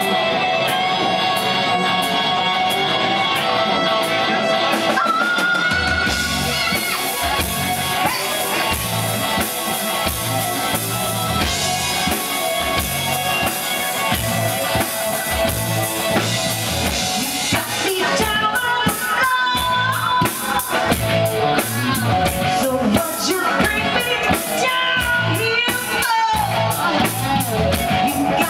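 Live rock band playing amplified in a bar: an electric guitar and keyboard intro, then drum kit and bass come in with a steady beat about six seconds in, and a woman's lead vocal enters in the second half.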